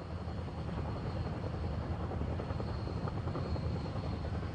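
Mil Mi-10 flying-crane helicopter running, its turboshaft engines and rotor giving a steady low, rapidly beating rumble with a faint high whine.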